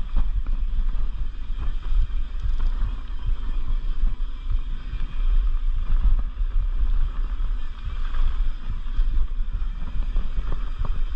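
Mountain bike riding along a dirt singletrack: a steady low rumble of wind on the microphone and tyres rolling over the dirt, with a few sharp clicks and rattles from the bike.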